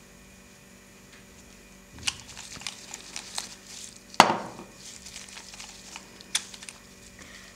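Handling noise from cotton-gloved hands working a glass nail-polish bottle and brush over magazine paper. After a quiet start come rustles and light clicks, with one sharp louder knock about four seconds in.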